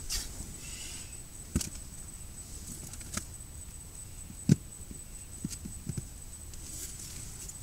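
A few soft knocks and bumps from people shifting in bedding, the loudest about four and a half seconds in, with faint rustling, over a steady hiss.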